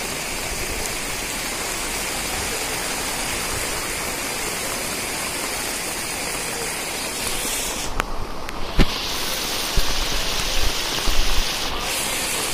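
Fast floodwater rushing across a road in rain: a steady, loud rushing noise. Several dull thumps come in the last few seconds.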